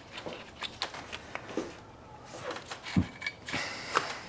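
Light metallic clicks and clatters of hand tools and parts being handled, with a louder knock about three seconds in.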